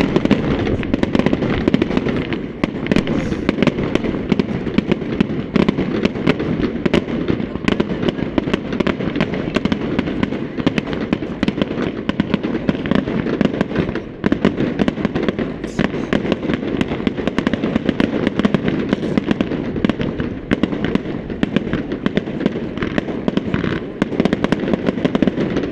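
Aerial fireworks display: a dense, unbroken barrage of bangs and crackling over a steady rumble.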